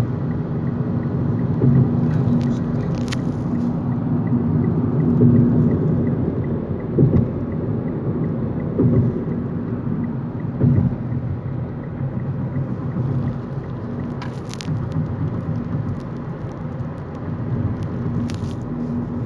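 Steady low road and engine rumble heard inside a moving car's cabin, with a constant low hum and a few brief clicks.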